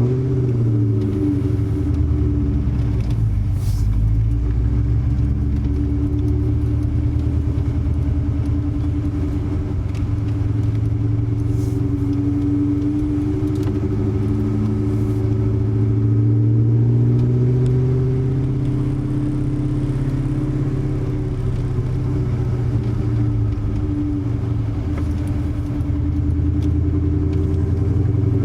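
Supercharged 4.6-litre V8 of a 2003 Mustang SVT Cobra running through Kooks headers and a Borla ATAK exhaust, a deep steady exhaust note at low revs whose pitch rises and falls gently with light throttle.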